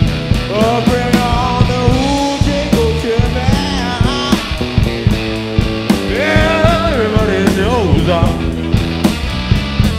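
Blues-rock trio playing live: electric guitar, electric bass and drum kit, with a steady beat of drum hits and lead notes that bend and slide in pitch twice.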